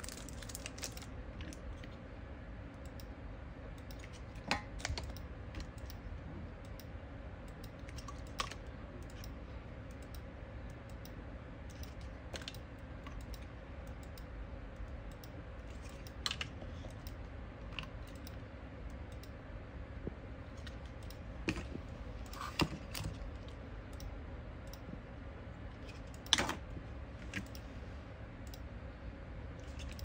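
Scattered light clicks and taps, a few seconds apart, over a low steady hum; the sharpest click comes about four seconds before the end.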